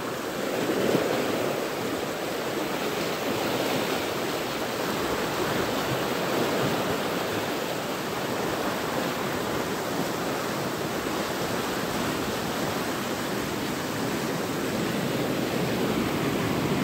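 Swollen floodwater rushing and churning through a concrete sluice channel, a steady, unbroken rush of water.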